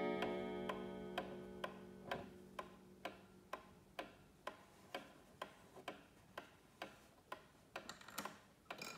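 Antique Atkins pendulum mantel clock ticking steadily, about two ticks a second. The ring of its coil gong, struck by a hammer just before, fades away over the first few seconds. A few extra clicks come near the end.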